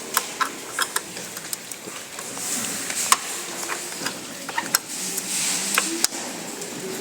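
Hands working on a desktop computer's system unit during disassembly: irregular small clicks, taps and scrapes of metal and plastic parts as the processor heatsink and cooling fan are worked loose.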